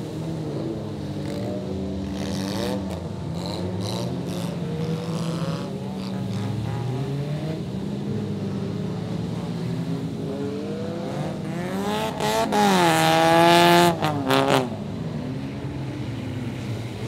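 Several car engines running and revving at once, their pitches rising and falling, with one engine revving up loud for about two seconds near the end.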